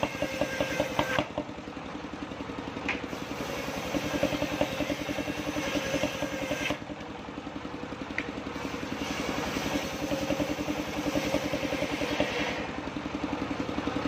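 Engine of a mobile circular sawmill running steadily with a fast, even chugging while the large circular blade rips through a log in passes; the cutting noise drops away briefly about a second in and again around seven seconds, leaving the engine alone.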